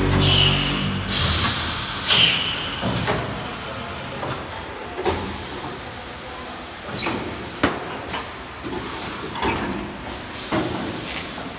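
Vacuum rice packing machine at work: two sharp bursts of compressed-air hiss in the first few seconds, then a string of short mechanical clacks and knocks.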